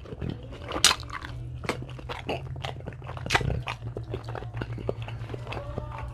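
Close-miked eating of Dungeness crab: wet chewing and crunching, with sharp cracks about a second in and again just past three seconds. A steady low hum runs underneath.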